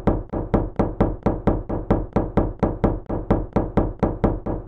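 A fist banging on a house door, rapid and even at about four or five knocks a second: someone pounding to be let in.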